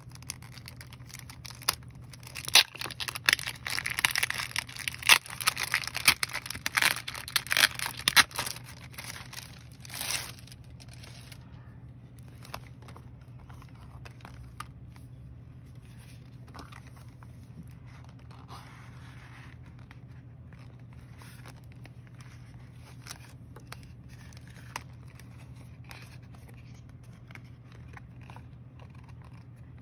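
Packaging being torn open and crinkled for several seconds, then quieter handling with scattered soft clicks and rustles. A low steady hum runs underneath.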